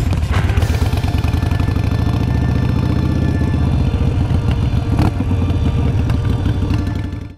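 Harley-Davidson Sportster's V-twin engine running as the motorcycle is ridden at low speed, with a steady pulsing exhaust beat. A single sharp click about five seconds in.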